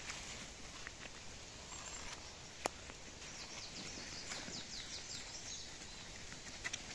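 A small songbird sings one short phrase of quick, falling high notes over quiet forest ambience. A single sharp click comes just before it.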